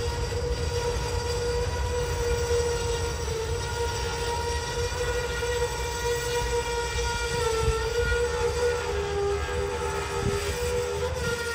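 Fully loaded autorack freight cars rolling slowly past with a steady low rumble, while the wheels give a sustained high-pitched squeal that shifts slightly in pitch as the train slows for a stop.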